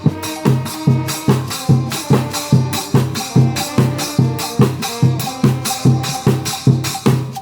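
Trombone band with drums playing: a bass drum and percussion keeping an even beat of about two and a half strokes a second, under held brass notes.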